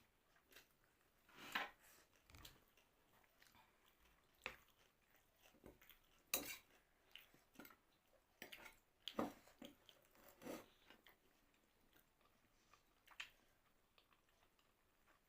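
Quiet eating sounds: chewing homemade momos, with scattered light clicks of chopsticks and cutlery against a plate, a few of them louder.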